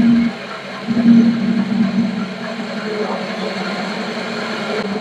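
Small metal lathe running steadily with a low hum, swelling briefly about a second in, as a parting tool is hand-fed into a spinning brass cutlass bearing tube.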